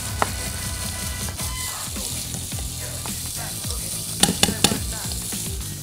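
Shrimp sizzling steadily in a hot frying pan. A little over four seconds in come three sharp knocks in quick succession.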